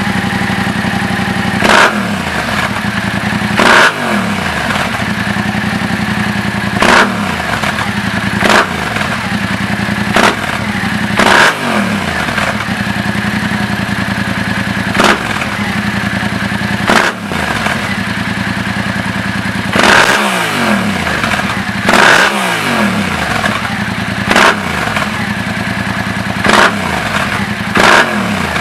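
Yamaha MT-07's parallel-twin engine, breathing through an Akrapovič carbon exhaust with the dB killer fitted, idling with about a dozen sharp throttle blips, each rev dropping quickly back to a steady idle.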